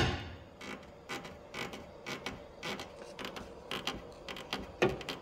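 Honda Accord front suspension creaking over and over, about twice a second, after a sharp knock at the very start. This is the squeak the owner traces to a worn front rubber bushing (silent block) of the control arm.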